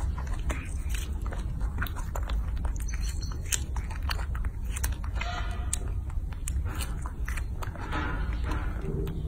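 A baby monkey biting into and chewing a strawberry: a run of quick, irregular mouth clicks and smacks over a low steady hum.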